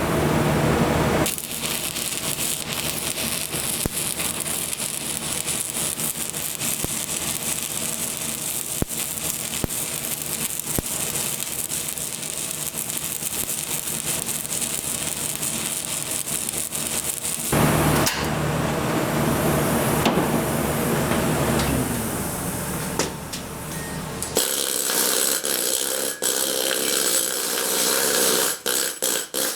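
Stick-welding arc crackling steadily as a bead is run on a steel drive shaft. It stops about 17 seconds in and starts again about 24 seconds in for a second run.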